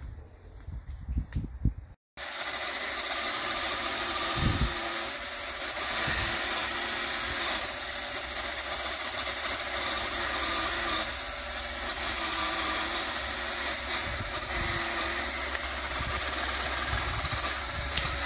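A few sharp cutting strikes on brush, then, after a short break about two seconds in, a powered cutting tool runs steadily as it cuts into brush and branches.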